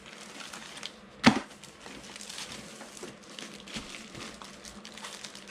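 Unpacking a diamond-painting kit by hand: one sharp knock about a second in, then soft rustling and light clicks of cardboard and the plastic-wrapped rolled canvas being handled.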